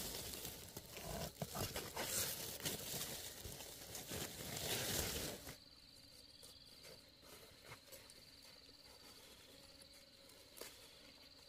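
Rustling and crinkling handling sounds with many small cracks for about five seconds, then an abrupt drop to a quiet outdoor background with a high, steady insect trill pulsing on and off.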